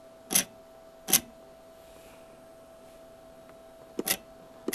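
Short sharp clicks from working a homemade MPG control pendant on a CNC lathe as the increment is changed. There are two single clicks, a pause, then quick double clicks near the end, over a faint steady electrical hum.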